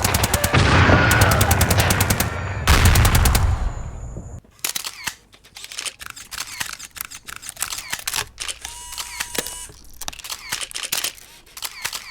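Rapid machine-gun fire, a dense stream of shots, cuts off suddenly about four and a half seconds in. Quieter, scattered camera shutter clicks follow.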